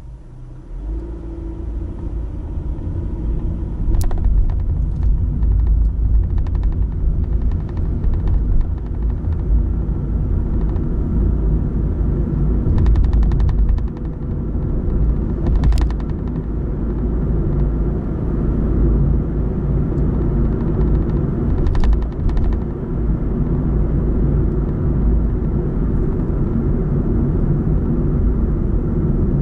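Car pulling away from a standstill and driving on, heard from inside the car: low engine and tyre rumble that swells over the first few seconds and then holds steady, with a few sharp ticks.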